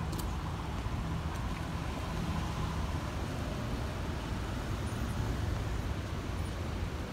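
Steady low rumble of street traffic and idling cars at a city intersection, with no sudden events.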